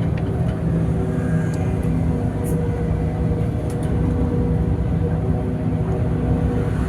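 Bus engine running with a steady low drone, heard from inside the cabin while the bus is moving.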